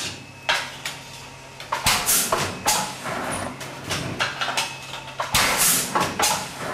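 A TC2 digital jacquard hand loom being worked: an irregular run of wooden knocks and clacks from shuttles and the beater, with short rushing noises, the longest about a second long near the end. A low steady hum sits underneath.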